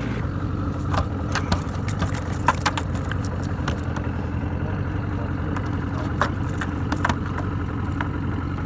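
Boat motor idling steadily, with a scatter of sharp clicks and knocks as a landed trout and its lure are handled on the deck, bunched in the first few seconds and again near the end.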